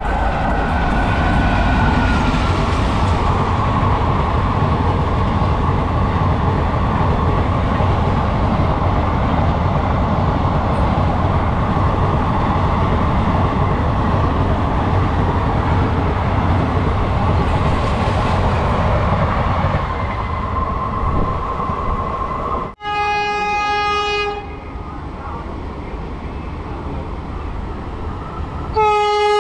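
Train running with a steady heavy rumble and rail noise; after a sudden cut, a train horn blows a blast of about a second and a half, and a second blast starts near the end.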